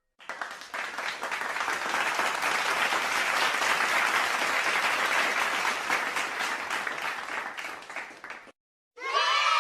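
Crowd applause: many people clapping, a dense patter that builds in the first second and fades away near the end.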